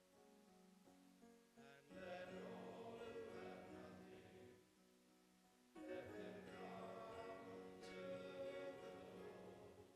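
Choir singing over a held instrumental accompaniment, in two long phrases beginning about two and six seconds in, heard faintly in a reverberant chapel.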